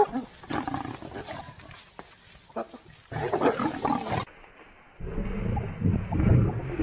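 A spotted hyena and a leopard fighting: a sharp snarl at the start, then uneven bouts of snarling and growling. These break off about two thirds of the way through, and a duller, denser stretch of growling follows.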